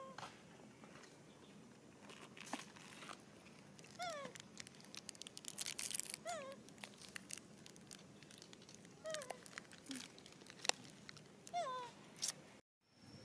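Newborn pig-tailed macaque crying: about five short, high squeals that each fall sharply in pitch, a few seconds apart, the cries of an upset infant. Faint clicks and rustling lie between them.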